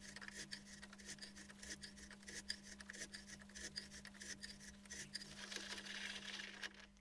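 Thread being cut by hand with a die on an aluminium plug held in a bench vise: quiet, irregular scraping and clicking of metal on metal as the die stock is worked.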